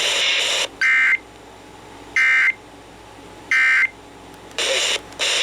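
Emergency Alert System end-of-message code: three short bursts of SAME digital data tones, about a second apart, signalling the end of the weather alert. There is a bright radio hiss just before and just after the bursts.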